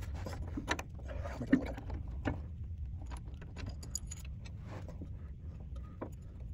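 Scattered metal clinks and light knocks of hand tools and parts being handled during reassembly, over a steady low hum, with one sharper knock about a second and a half in.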